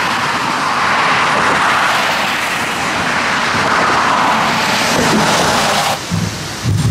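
Motorway traffic passing on a rain-soaked road: a steady rushing hiss of tyres through spray. It cuts off suddenly about six seconds in, and a low rumble follows.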